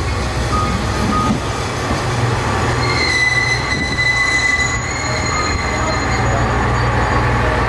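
Passenger train running at a station platform, a steady low rumble with a high metallic squeal from the wheels or brakes for a couple of seconds about three seconds in.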